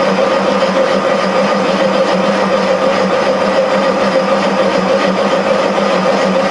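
Machine tool running steadily while a half-inch boring bar in a one-inch extension takes a light cut, 50 thousandths off the diameter, in the bore of a cast drive mount. It is a constant hum with a few steady tones and no change in the cut.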